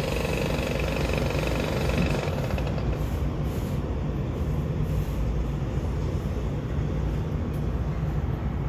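A steady low rumble with no distinct events; a faint higher hum in it fades out about two seconds in.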